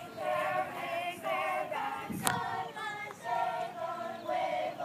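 A group of high voices singing a song together in unison, note by note without a beat, with one sharp knock about two seconds in.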